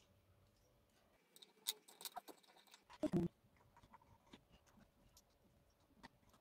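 Faint clicks and taps of small dollhouse miniatures being handled and set down by hand, with a brief louder thump about three seconds in.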